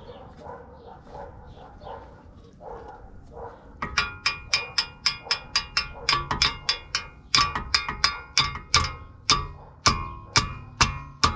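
Hammer blows on steel suspension parts, the ball joint and steering knuckle being knocked to free them: softer knocks at first, then from about four seconds in sharp ringing strikes about three a second, with two short breaks.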